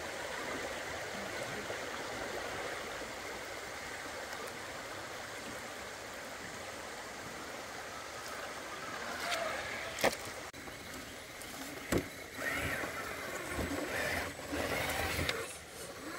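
Creek water running over rocks in a steady rush. In the second half come a few sharp knocks, the loudest about ten and twelve seconds in, among other irregular sounds.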